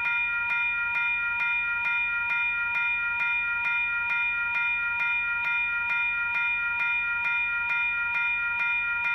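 Australian railway level crossing warning bell ringing in a steady, even repeat of about two strikes a second. Each strike is a ringing tone with several pitches, signalling an approaching train.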